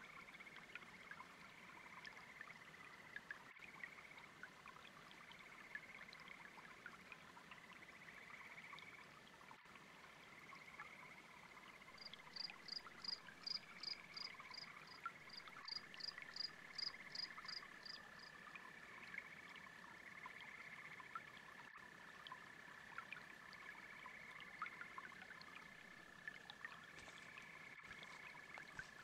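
A faint chorus of frogs and toads calling, with repeating calls throughout and a long steady trill joining about halfway through, over a soft trickle of brook water. In the middle, a higher-pitched pulsing call repeats about three times a second for about six seconds.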